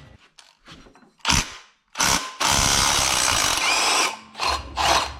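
Power tool running in bursts on the engine's water pump bolts: a short burst about a second in, a longer run of about two seconds, then two short bursts near the end.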